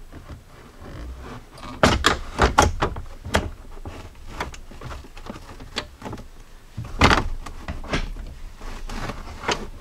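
Plastic center console of a Jeep Cherokee XJ being slid back into place: a series of plastic knocks, clunks and scrapes as it is fitted, in a cluster about two seconds in and again about seven seconds in.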